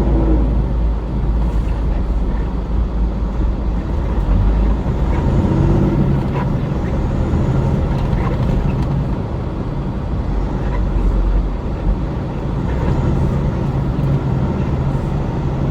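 Steady drone of a vehicle's engine and road noise while driving on a freeway.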